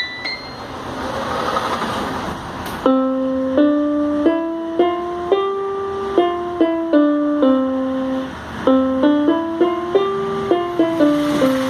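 Casio CTK-700 electronic keyboard playing a melody with two notes sounding together, in a steady rhythm of short and held notes, starting about three seconds in. Before it comes a rising hiss that ends in a click.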